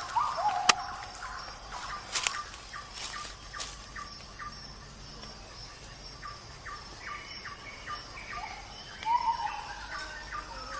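A small kitten mewing in short high-pitched cries, a couple at the start and a pair about nine seconds in, with quick, rapid chirps between them.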